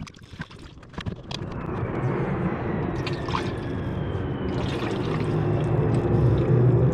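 Navy F/A-18 Hornet jet flying overhead, its rumble growing steadily louder, with a faint high tone in it that slowly falls in pitch. At first, coolant trickles and drips through a funnel.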